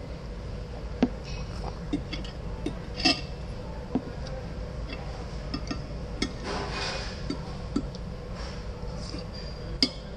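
Metal fork and spoon clinking against a ceramic dinner plate, about ten light, irregular taps, over a steady low room hum.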